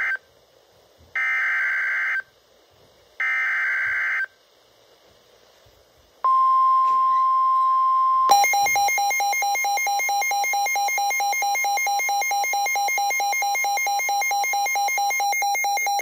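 NOAA Weather Radio severe thunderstorm warning coming through a Midland weather radio. First come the end of one and then two more roughly one-second warbling SAME data bursts, the coded alert header. After a short pause the steady single-pitch warning alarm tone starts about six seconds in. About two seconds later the radio's own loud, rapidly pulsing electronic alarm beep joins in and keeps sounding: the radio has been triggered by the warning.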